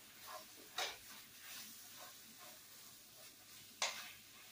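A spoon stirring and scraping pasta in a cooking pot on the stove, with two sharp clinks of the spoon against the pot, about a second in and near the end, the second the loudest.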